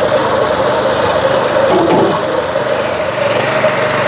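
Small petrol engine running steadily, driving a mini monkey hoist's winch with no load on it. A short change in tone comes about halfway through.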